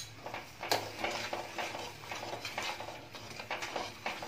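A steel spoon stirring sugar into milk in a nonstick kadai: a sharp clink of spoon on pan at the start, then quick repeated scraping strokes, about two a second.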